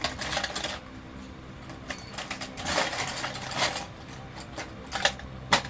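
Handling noise: three short bursts of rustling and clatter, at the start, around the middle and near the end, over a low steady hum.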